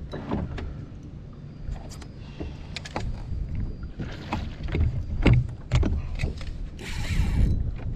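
Water sloshing against a Hobie Outback fishing kayak's plastic hull, with irregular knocks and thumps on the boat and a short hiss near the end.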